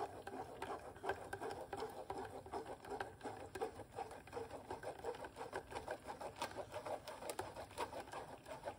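A metal spoon stirring and scraping beetroot pulp against a fine mesh sieve in quick, repeated strokes, pressing the juice through into the bowl below.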